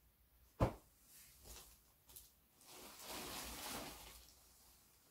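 Clothes being handled. There is a single sharp knock about half a second in, then a rustle of fabric and packaging lasting about a second and a half as the next skirt is pulled out.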